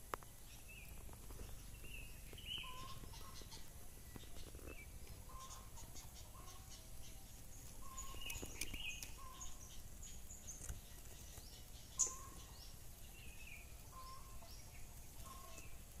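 Faint outdoor ambience of birds calling: a short low note repeated about every second or so, with scattered higher chirps over it. A single sharp click stands out late on.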